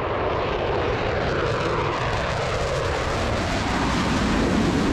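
Airplane flying past, its engine noise a loud, steady rush whose pitch slowly falls as it goes by.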